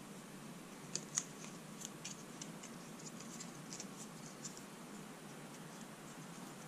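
PTFE thread tape being pulled off the roll and wrapped around the male threads of a brass 90-degree elbow: faint crackles and ticks, with two sharper clicks about a second in.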